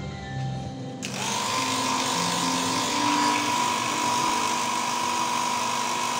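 Hand-held hair dryer switched on about a second in, then running steadily: rushing air with a steady whine from its motor.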